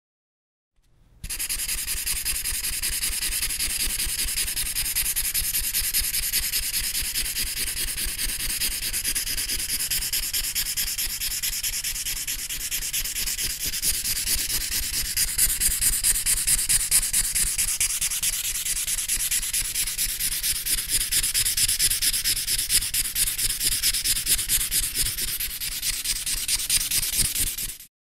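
A marker rubbing back and forth on paper, coloring in: a continuous dry, scratchy hiss of quick strokes that starts about a second in.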